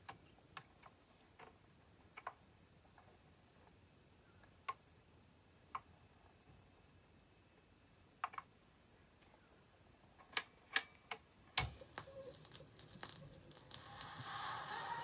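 Dual 1019 autochanger turntable cycling: scattered light mechanical clicks as the tonearm swings over and lowers, and a louder click about three-quarters through as the stylus sets down on the record. Soft crackle of the lead-in groove follows, and the music starts to fade up near the end.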